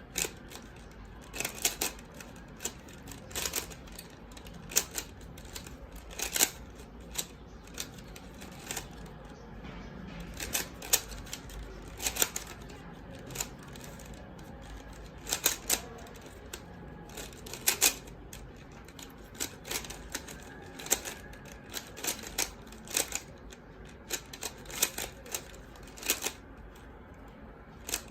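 3x3 Rubik's Cube being turned quickly by hand during a solve: irregular clicking and clacking of the plastic layers as they turn and snap into place, often in quick runs of two or three.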